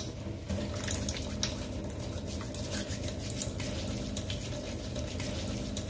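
Wet foaming scrub being worked into a lather with water: a steady wet crackle and squish with many small scattered clicks.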